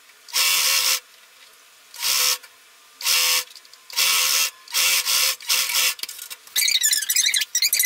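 Singer electric domestic sewing machine stitching fabric in short runs: about six bursts of under a second each with brief stops between, then a faster, stuttering run near the end.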